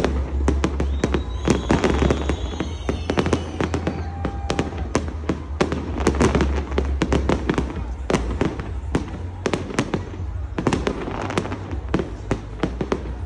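Aerial fireworks going off in a dense, continuous barrage: many sharp bangs and crackles a second over a steady low rumble of booms.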